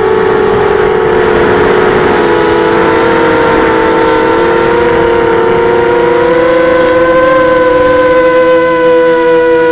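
FPV quadcopter's electric motors and propellers whining in flight, several close steady tones that drift slightly in pitch, rising a little about seven seconds in.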